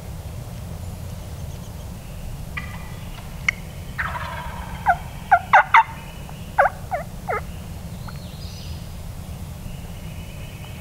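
A wild turkey gobbler gobbles once about four seconds in, followed by a quick run of short, falling yelps from turkey hens.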